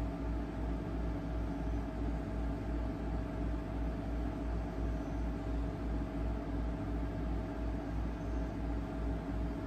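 Steady low machine hum with an even hiss underneath, its deepest tone pulsing slowly and regularly.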